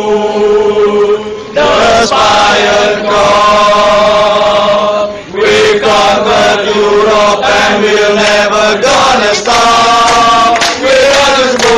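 A crowd of Liverpool football supporters singing a chant together, loud, in sung lines with short breaks between them.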